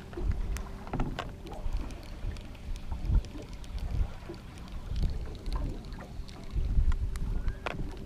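Water slapping and lapping against a small boat's hull on choppy water, in irregular surges, with wind buffeting the microphone and scattered light clicks.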